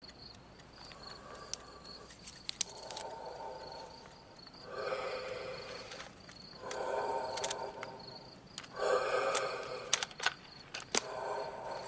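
Crickets chirping in a steady, faintly pulsing high trill, under sharp clicks from a cassette Walkman being handled. Louder drawn-out pitched sounds, each about a second long, recur every couple of seconds.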